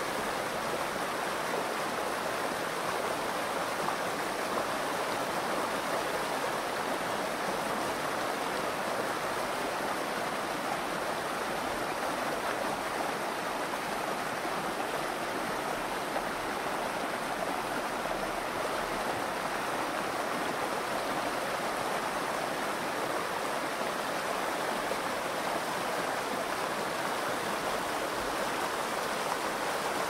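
Shallow river rushing steadily over rocks in small rapids.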